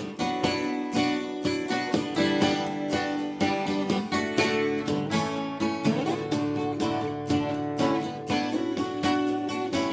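Two acoustic guitars strumming chords in a steady rhythm: the instrumental intro of a song, before the vocal comes in.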